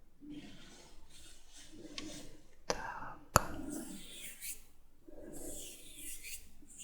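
Close-miked ASMR mouth sounds: soft, wet, breathy noises with two sharp sticky clicks a little over half a second apart near the middle.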